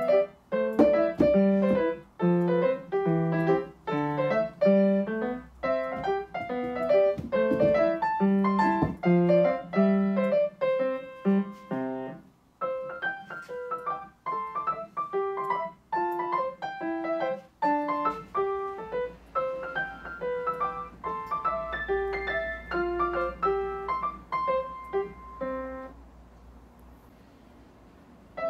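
Background piano music playing a melody of separate struck notes. It breaks off briefly about twelve seconds in and drops away for the last couple of seconds.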